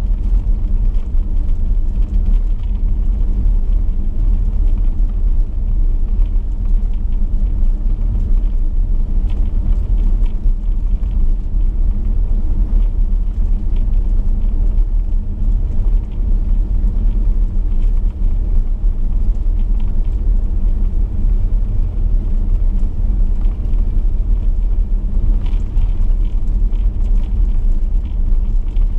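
Chevrolet V8 car cruising steadily on a gravel road: a constant low rumble of engine and tyres, with faint crackles of gravel now and then.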